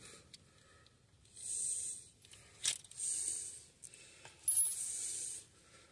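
Loose steel sockets clinking and rattling against each other while a socket set is searched for the right size, in three short bursts with one sharper clink about two and a half seconds in.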